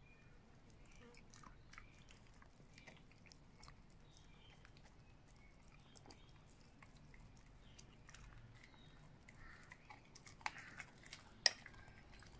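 A Belgian Shepherd (Groenendael) dog chewing raw chicken frame mince taken off a metal spoon: a faint run of small wet clicks and smacks, with two sharper clicks near the end.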